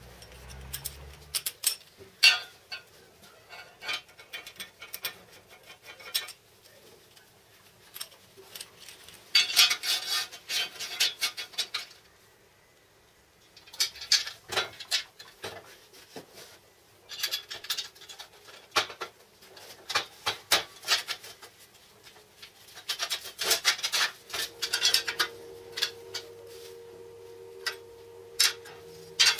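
Steel parts of a homemade angle grinder stand being handled and fitted together: irregular metal clinks and knocks, with a few longer stretches of steel scraping against steel.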